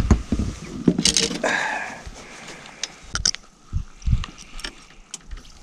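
Scattered light knocks, clicks and scrapes of hands handling gear and fish in a small boat, with a short hiss about a second and a half in.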